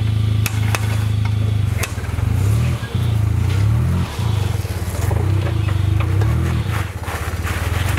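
Modified Suzuki Jimny JA11's engine pulling at low revs as it crawls over rocks, its pitch rising and falling in repeated blips of throttle. A few sharp knocks sound in the first couple of seconds.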